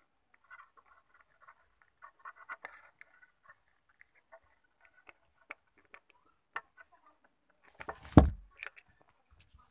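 Light clicks and scratches of a plastic lid and selfie stick being handled and fitted together, then about eight seconds in a loud thud as a mobile phone drops.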